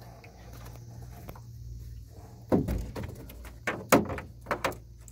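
Knocks and clatter against a small aluminum fishing boat, in a burst about two and a half seconds in and again around four seconds in, over a steady low hum.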